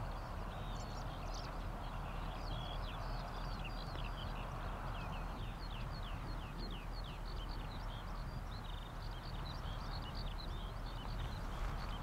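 Several small birds singing and chattering in quick, busy phrases over a steady low rushing background.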